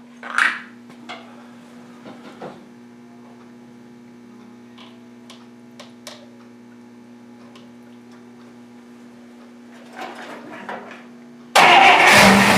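Scattered clicks and knocks over a steady low hum, then near the end the 1955 Buick's 322 Nailhead V8 starts and runs loudly.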